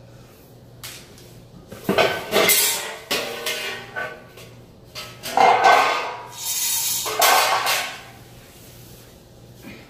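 Clattering and scraping of metal parts on a dishwasher being worked on, in several loud bursts with a little metallic ringing between about two and eight seconds in.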